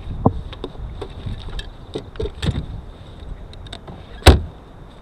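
Irregular clicks and knocks of a homemade PVC transducer pole mount being handled and fitted onto a RAM ball mount on the boat's rail bracket, with one loud clunk about four seconds in.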